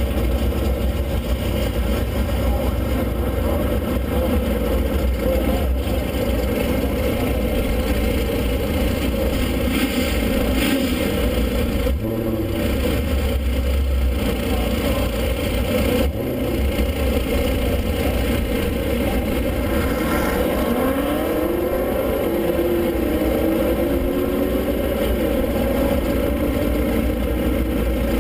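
A car engine idling with a low, steady rumble while the car creeps forward in the drag-strip staging lanes. About twenty seconds in, an engine revs up in rising sweeps.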